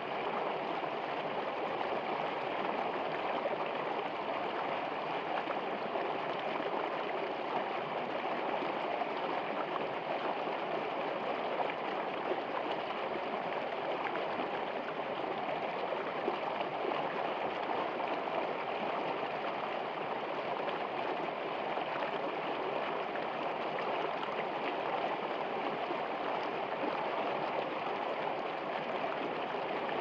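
Shallow, ice-edged stream flowing over rocks: a steady, even rush of running water.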